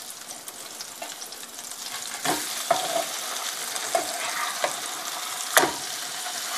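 Kingfish steaks sizzling as they shallow-fry in oil in a frying pan, the sizzle growing louder about two seconds in. A metal spatula knocks and scrapes against the pan several times as the steaks are turned over, loudest near the end.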